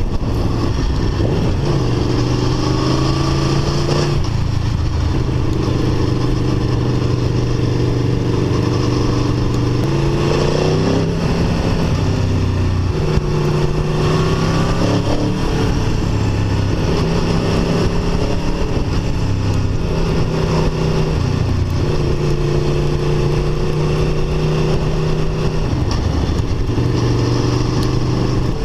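Aprilia Tuono V4 1100 RR's 65-degree V4 engine through its stock exhaust, heard from the rider's seat while cruising at part throttle. The engine note holds steady for stretches and rises and falls in pitch a few times as the throttle changes.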